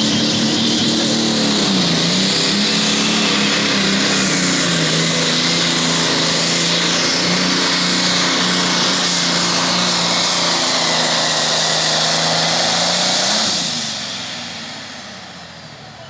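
Turbocharged diesel engine of a John Deere pulling tractor running flat out under full load as it drags the weight-transfer sled. The engine note sags as it takes the load about two seconds in, then holds steady. About thirteen seconds in it drops off as the pull ends.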